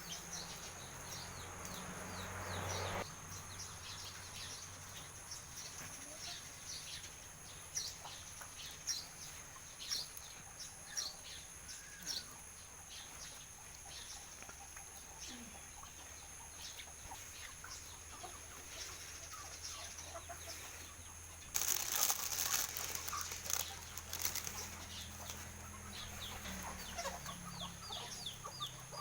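Chickens feeding, with scattered short pecking taps and some clucking, and a loud burst of wing flapping lasting a couple of seconds about three-quarters of the way through.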